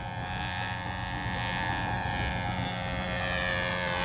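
Engine of a radio-controlled model Cessna 182 in flight: a high, steady whine that grows louder as the plane approaches, its pitch rising near the end.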